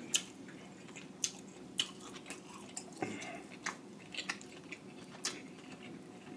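Fingers picking through seafood boil soaked in butter sauce and lifting out a piece of shelled seafood: scattered short sticky clicks, with sauce dripping off the piece.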